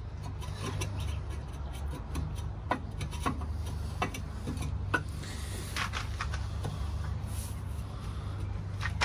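Scattered light clicks and taps as a gasket is pressed and worked down onto the locating pins of a diesel engine block, over a steady low hum.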